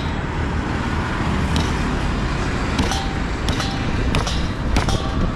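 A cleaver chopping crocodile meat on a round wooden chopping block: about six sharp chops, roughly a second or less apart, over a steady low rumble of road traffic.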